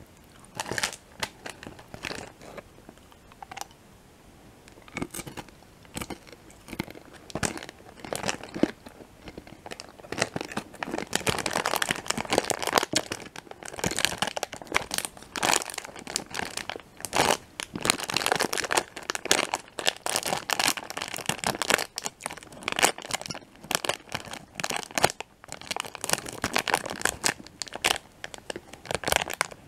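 Plastic wrapper of a Peanut M&M's bag crinkling as it is handled close to the microphone. Scattered crackles at first become dense, continuous crinkling from about ten seconds in.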